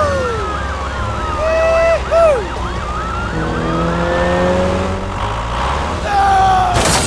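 Police siren wailing, its pitch rising and falling over and over, with a few short pitched sound effects over it.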